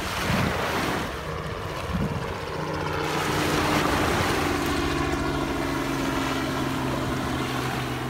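Ocean surf washing, with wind buffeting the microphone. A steady motor hum comes in about two and a half seconds in and carries on beneath the water sound.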